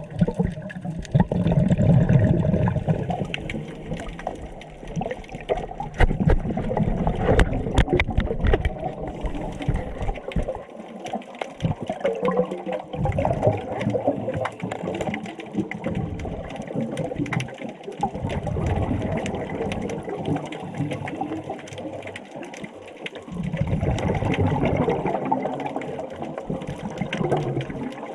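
Scuba diver's exhaled bubbles rushing up from the regulator, heard underwater, swelling in bursts about every five to six seconds with the breathing, with scattered small clicks.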